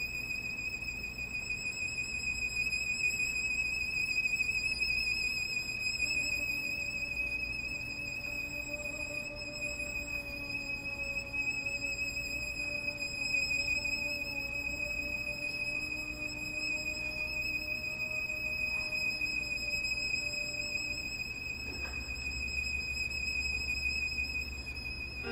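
Live contemporary chamber music: a single very high note held steadily with a slight waver, joined about six seconds in by a quieter lower held note that stops a few seconds before the end.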